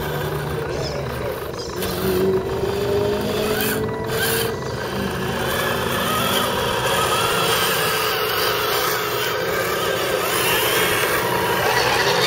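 Electric motors and gearboxes of RC scale crawler trucks whining as they crawl over a rough dirt trail, with the whine rising in pitch about two seconds in. Loose gravel crunches under the tyres.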